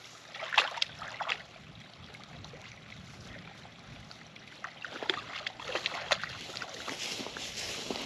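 Stream water trickling, with scattered short splashes and knocks.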